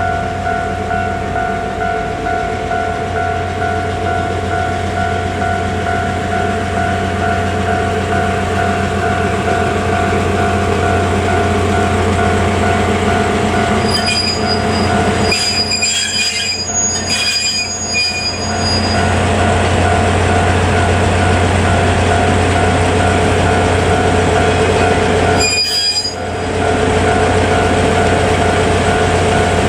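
A DE10 diesel locomotive and its passenger coaches roll slowly past under a steady engine hum. The wheels squeal in high-pitched bursts around the middle and again near the end. A level-crossing warning bell rings steadily in a regular pulsing pattern throughout.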